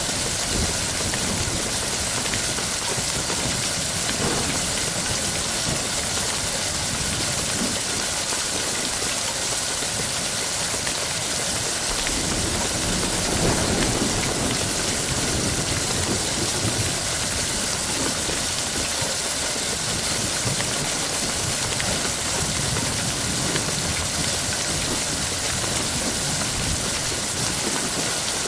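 Steady rain with a low, uneven rumble underneath that swells about halfway through.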